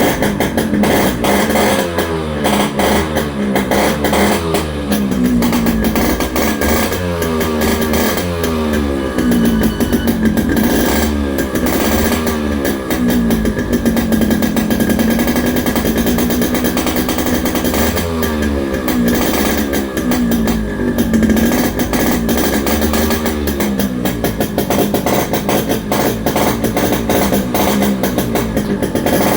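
Yamaha RX 100's two-stroke single-cylinder engine running and being revved up and down over and over, its pitch rising and falling in repeated sweeps.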